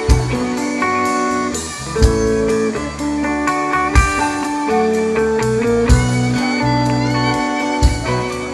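Rock band playing an instrumental intro live: electric guitar melody over held chords, with a heavy drum accent about every two seconds.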